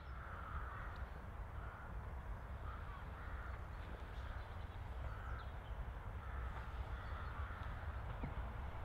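Crows cawing, a run of repeated harsh calls, over a steady low rumble.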